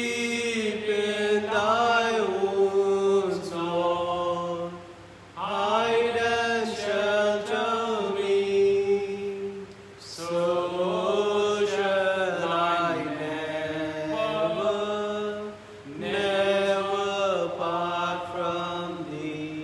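A voice singing a slow, chant-like hymn in four long phrases of about five seconds each, with short breaths between them.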